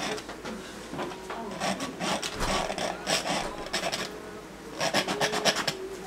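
Paintbrush scrubbing oil paint onto a stretched canvas in quick scratchy strokes: one spell about a second and a half in, and a shorter one around five seconds in.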